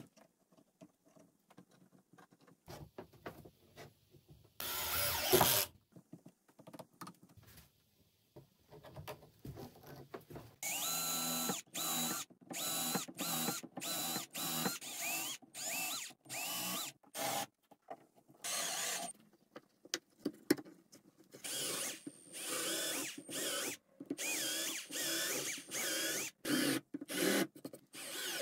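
Cordless drill/driver boring and driving screws into plywood in many short bursts, the motor's whine rising as each burst starts. Before that, mostly quiet handling clicks and one brief loud noise.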